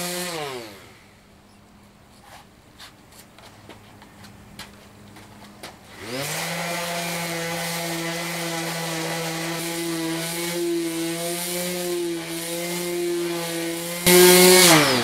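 Electric palm sander sanding fiberglass flush. It winds down just after the start, then comes a few seconds of quiet broken by small clicks. About six seconds in it starts up again and runs steadily, gets much louder for about a second near the end, and then winds down.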